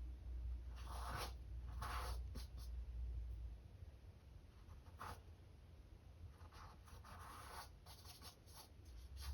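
Paintbrush strokes on a stretched canvas: soft, faint brushing and scratching sounds coming irregularly, several short strokes with pauses between.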